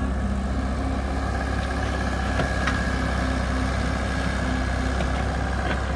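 Mini excavator's diesel engine running steadily while the arm works a bucket of sand, with a few light clicks from the machine.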